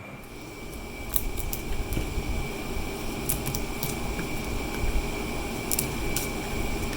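Sanding the hardened autobody glue-stick filler on a garden tractor's steering wheel: a steady rough scraping with a few short clicks.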